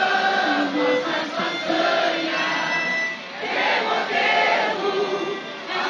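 A crowd singing together in chorus on long, held notes, with a violin playing along.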